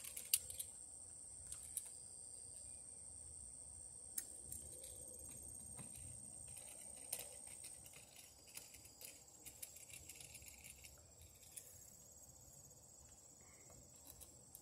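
Faint steady high-pitched chirring of crickets or other insects. Scattered small clicks and taps from handling an outlet and screwdriver at a wall box; the sharpest click comes just after the start.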